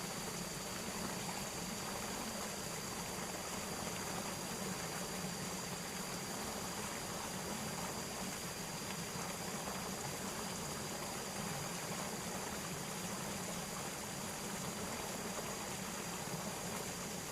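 Steady rushing of flowing water with a constant high thin tone above it.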